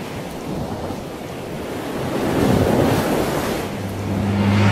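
Logo sound effect: a swelling rush of surf-like noise, joined about four seconds in by a low steady drone.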